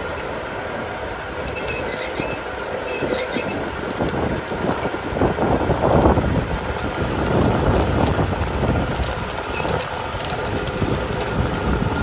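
Steady running of machinery, a continuous mechanical hum with a few steady tones and scattered clicks, swelling louder about halfway through.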